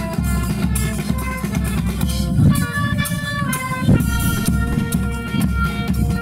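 Live band music: held melody notes over a steady low drum beat, with scraping and cymbal strokes from a washboard fitted with a small brass cymbal.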